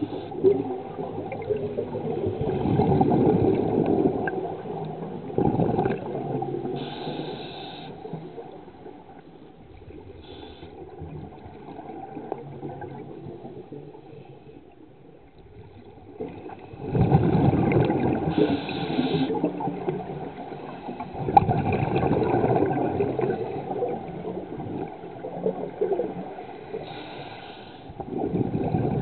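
Scuba diver breathing through an open-circuit regulator underwater: exhaled bubbles rush and gurgle in swells lasting a second or two, with short hisses of inhalation between them. A quieter stretch comes in the middle.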